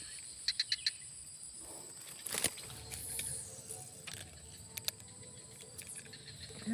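Insects droning steadily in a high, thin tone, with a quick run of four or five small clicks about half a second in and a single sharp click a couple of seconds in.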